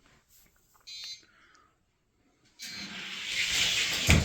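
Die-cast toy stock cars rolling down a gravity drag-race track. A rising rush of wheel noise starts about two and a half seconds in and ends in a sharp thump near the end.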